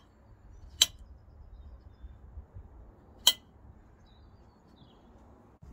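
A knife cutting a baked beetroot on a ceramic plate: the blade clinks sharply against the plate twice, about two and a half seconds apart.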